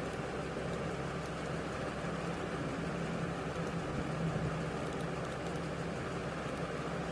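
Steady low hum with hiss, background noise picked up by the recording microphone, with a few faint clicks.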